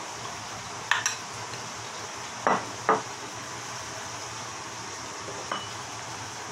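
A few separate clinks and knocks of ceramic and glass at a kitchen counter: a ceramic soup spoon tapping a ceramic mixing bowl, and the soy sauce bottle set down, with two louder knocks about halfway through and a light tap near the end. A steady hiss runs underneath.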